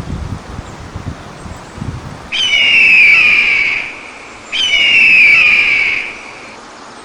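Two long, loud, high whistles, each about two seconds, the second following shortly after the first, each starting a little higher and settling onto a steady pitch.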